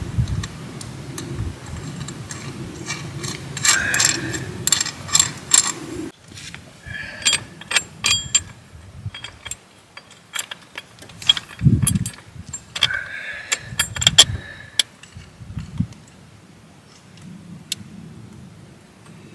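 Hand wrench working a nut on a bolt of a Tucker snow groomer's steel track cleat: bunches of quick ratcheting clicks and metal clinks, with pauses between.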